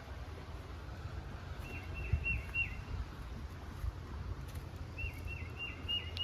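A songbird singing two short phrases, each a quick run of four or five repeated whistled notes that drop in pitch, about two seconds in and again about five seconds in, over a steady low rumble.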